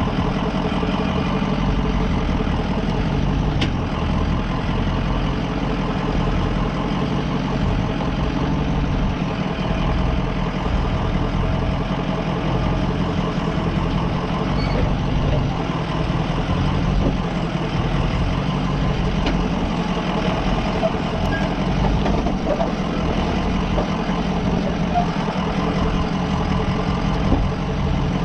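Ford E350 Sportsmobile van's engine running steadily at low revs as the van crawls down a steep rock trail, with a few faint clicks over the low, even rumble.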